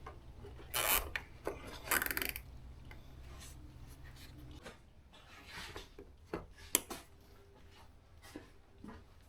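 Plastic cable tie being fed and pulled tight around a hose, with two short ratcheting rasps early on, then scattered clicks and handling of plastic parts, one sharp click near the end.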